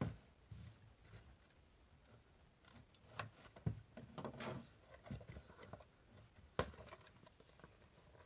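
Faint handling of a small cardboard retail box as it is opened: scattered taps, scrapes and clicks, with a sharper click about six and a half seconds in.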